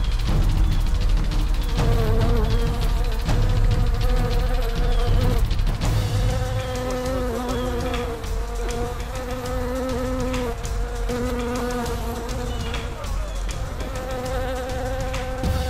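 A swarm of wild honeybees buzzing around their hive, stirred up as it is opened by hand: a dense hum that wavers slightly in pitch. A low rumble and a few sharp knocks run underneath.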